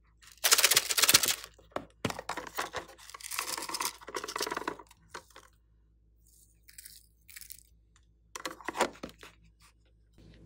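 Crackly, scratchy crunching from handling a plastic toy makeup case and crumbled makeup flakes scattered onto slime. It comes in several bursts, the loudest about half a second in.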